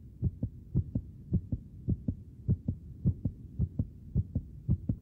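Heartbeat sound effect, a steady lub-dub of low double thumps nearly twice a second, laid in as a suspense cue.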